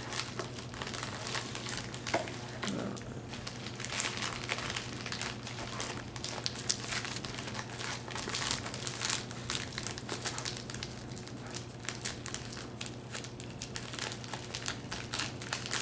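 Paper crinkling and rustling in quick, irregular crackles as a Christmas present is unwrapped.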